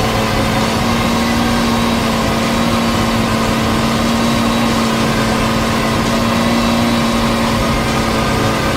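Lamborghini supercar engine idling steadily with a constant hum.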